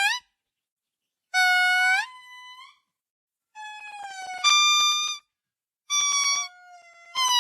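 A monkey giving a series of five high, whistle-like cries, each under a second, holding one pitch and lifting upward at the end, with short silent gaps between them.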